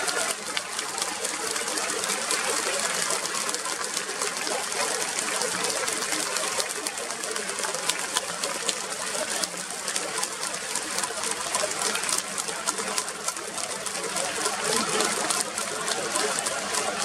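Large ballpark crowd applauding, dense clapping that holds steady throughout.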